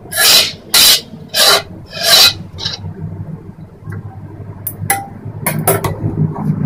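A metal slotted spoon stirring thick dal and scraping against the inside of an aluminium pot. There are four loud scrapes in the first two and a half seconds, then lighter scrapes and clicks near the end.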